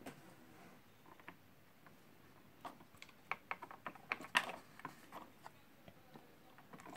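Light clicks and taps of a CPU water block being handled and seated onto its mounting standoffs over the processor socket. It is quiet at first; a loose string of small sharp clicks starts about halfway through.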